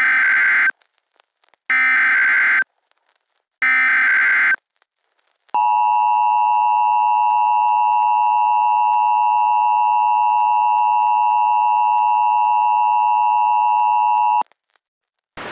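Emergency Alert System header: three short bursts of SAME digital data tones about a second apart, then, some five seconds in, the steady two-tone EAS attention signal (853 and 960 Hz). The attention signal sounds for about nine seconds and cuts off sharply.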